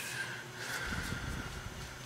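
Steady low hum of a running hydronic gas-fired heating boiler and its circulator, with a low rumble about a second in.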